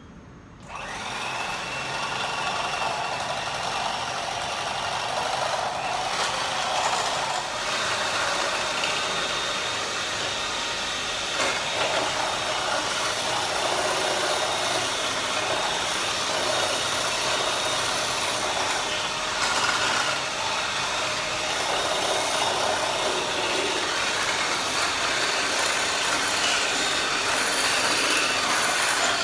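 Electric hand mixer switching on about a second in, then running steadily with its beaters whipping cream powder and milk in a bowl.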